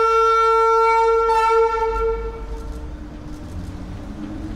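Horn of an approaching Berlin S-Bahn class 485 electric train, one long steady note of about three seconds that swells again about a second in. It is followed by the low running rumble of the train rolling into the platform.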